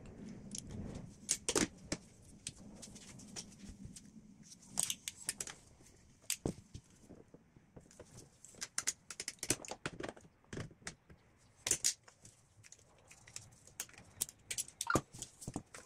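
Hand tools and metal fasteners clicking and clinking at irregular intervals as screws, hoses and connectors are worked off a diesel engine's EGR valve.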